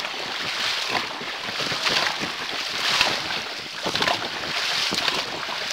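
Dragon boat crew paddling in unison: paddles striking the water about once a second over a steady rush of water, with wind on the microphone.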